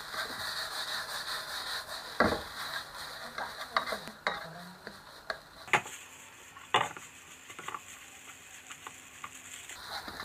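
Fried rice coated with sweet soy sauce sizzling in a non-stick wok while a spatula stirs and scrapes it, with a few sharp knocks of the spatula against the pan.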